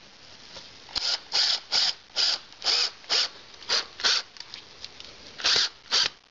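A series of short rasping strokes from a hand tool tightening the bolts that fasten the fireplace doors, about two strokes a second, with a pause of about a second midway.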